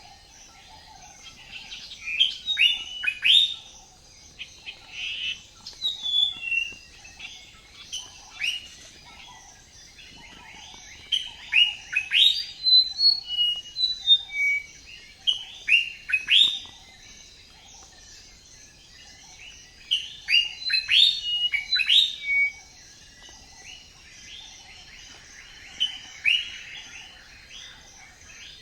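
Songbirds chirping: quick, high, falling chirps come in clusters of a few seconds, with quieter gaps between, over a faint steady background of more distant birdsong.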